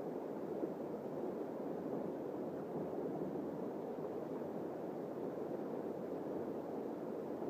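Steady rush of river water flowing over shallow rocks.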